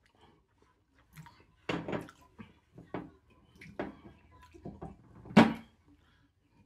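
A wine bottle being handled and opened: a string of short knocks, clicks and scrapes, with one sharper, louder knock about five and a half seconds in.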